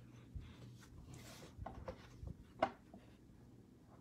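Faint handling of a stack of Panini Mosaic basketball cards: soft taps and a brief sliding rub as the stack is squared up, with one sharper tap about two and a half seconds in, over a faint low hum.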